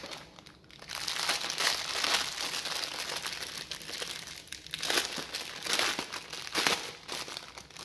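Plastic packaging crinkling and rustling as it is opened and handled, with several louder bursts.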